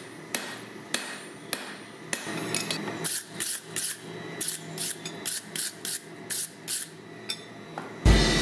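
Hammer blows on steel at the anvil: a few scattered strikes, then a steady run of about fifteen blows at roughly three a second. Loud guitar music cuts in just before the end.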